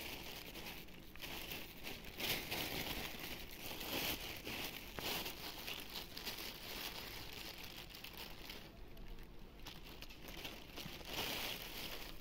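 Plastic bag crinkling as it is handled, in a run of irregular rustles.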